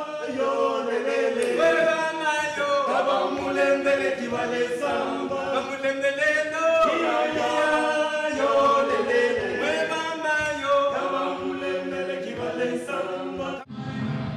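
A group of voices singing together without instruments, in several parts. The singing breaks off suddenly near the end.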